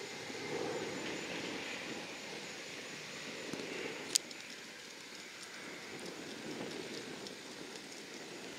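Distant military transport aircraft engines, a steady rushing noise; in the later part it comes from a C-130J Hercules's turboprops turning on the runway. A single sharp click about four seconds in.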